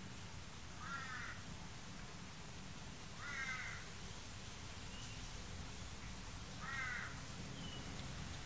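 A crow cawing faintly in the distance: three single short caws a few seconds apart.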